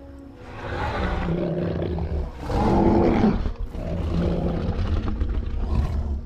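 Film sound effect of a giant gorilla growling: three long, low growls, the loudest about two and a half seconds in.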